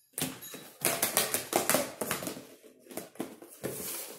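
Slime and plastic tubs being handled and cleared off a wooden table: a rapid, irregular run of clicks, taps and squelchy pops.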